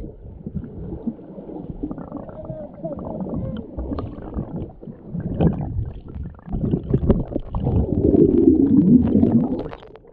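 Muffled underwater rumbling and gurgling of water heard through a submerged camera. It swells louder in the last few seconds, then drops away abruptly as the camera comes up out of the water near the end.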